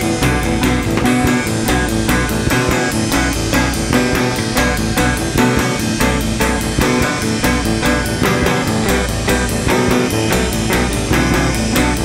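Rock music played by guitar, bass guitar and drum kit, with a steady, fast beat.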